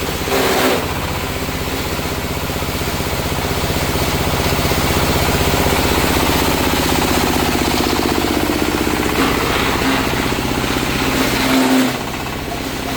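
Coconut-husk grinding machine (Type 60 coir shredder) running steadily under load as it grinds coir, a continuous mechanical drone with a wide grinding noise. It swells briefly louder twice, once just after the start and once near the end.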